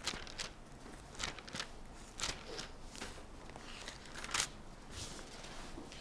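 Pages of a Bible being turned: a series of short, crisp paper rustles, a few each second, with a slightly louder one a little past four seconds in.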